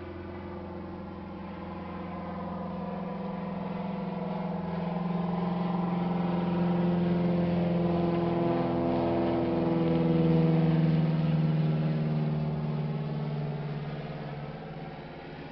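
Low-flying aircraft passing overhead: a steady engine drone that grows louder, is loudest about ten seconds in, then fades while its pitch drops.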